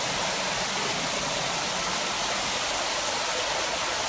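Steady, even rushing noise with no break or change.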